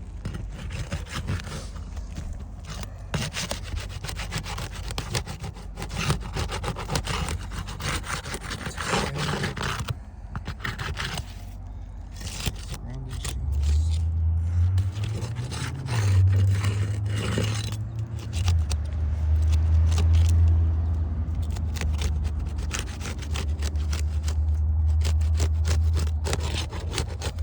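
Roof shingles being scraped and pried loose by hand, many irregular scrapes and clicks. From about halfway a strong low rumble joins in and runs on.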